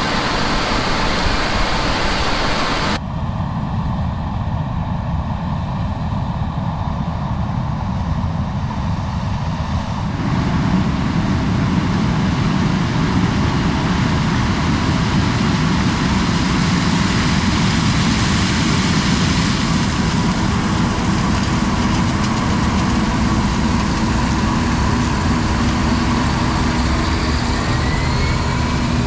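Heavy farm machinery running steadily, with the sound changing abruptly about three seconds and ten seconds in, and a brief rising whine near the end.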